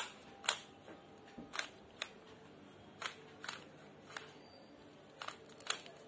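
Stickerless 3x3 Rubik's cube being twisted by hand: a string of short plastic clicks as the layers snap round, about ten in all at an uneven pace.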